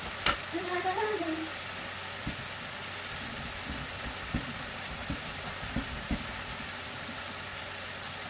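Food sizzling in a frying pan: a steady hiss with a few soft knocks scattered through it. A click and a brief voice come near the start.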